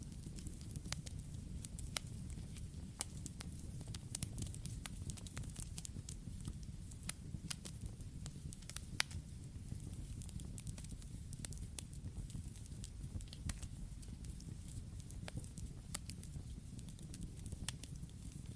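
Campfire burning: a steady low rumble of flame with irregular sharp crackles and pops from the wood, one louder pop about halfway through.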